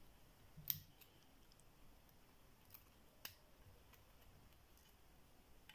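Faint metallic clicks of a pick and tension wrench working inside a cross lock as it is picked, a handful of scattered clicks with the sharpest about three-quarters of a second in and just after three seconds.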